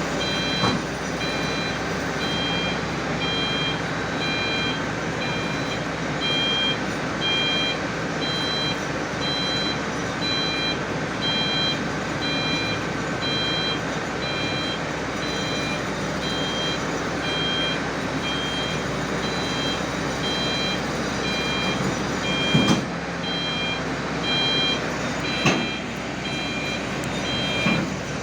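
Heavy tracked drilling rig's diesel engine running steadily while its travel alarm beeps about once a second. A few sharp knocks come through, two louder ones late on.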